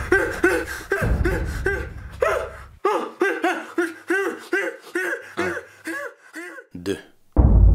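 A person laughing in a long run of short "ha" bursts, about three to four a second. A low rumble lies underneath for the first few seconds and then cuts off.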